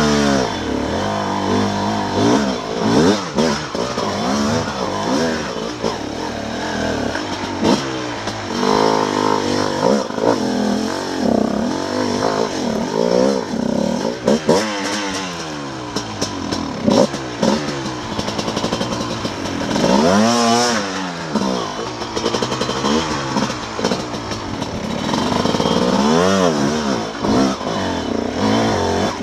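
Dirt bike engine revving up and down as the bike climbs a rough, rocky trail, its pitch rising and falling with the throttle every second or two.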